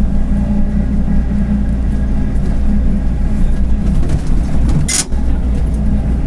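Mercedes-Benz OF-1721 bus's diesel engine running steadily under way, with the growl of a worn bearing. A brief hiss about five seconds in.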